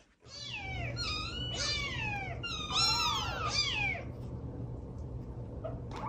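Several young kittens mewing, a run of high, repeated cries that overlap at times and stop about two seconds before the end.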